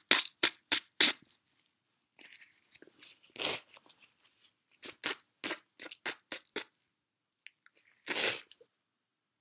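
A woman sniffling through a stuffy nose in quick runs of short sniffs, about four a second. Near the end comes one longer, louder forceful blast of breath through the nose.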